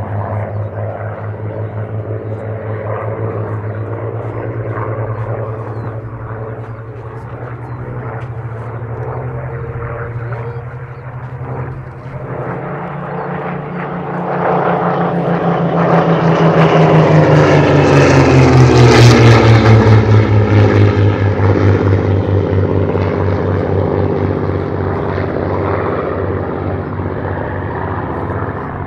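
Two Supermarine Spitfires flying past, their V12 piston engines droning. The sound swells to its loudest a little past halfway as they pass closest, then falls in pitch and fades as they move away.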